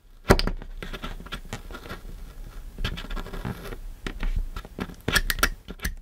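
Small side cutters snipping and shaving slivers off the plastic housing of a lever wire connector: a sharp snap about a third of a second in, then a run of crisp clicks and scratchy scraping, thickest again around five seconds in.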